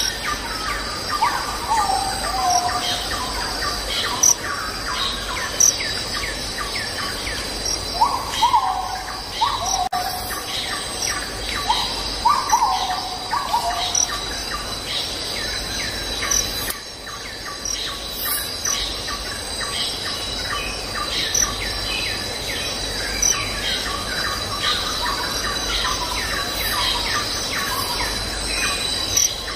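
Birds chirping and calling over a steady high insect trill. Groups of downward-sliding whistled notes come a few times, near the start and again around the middle.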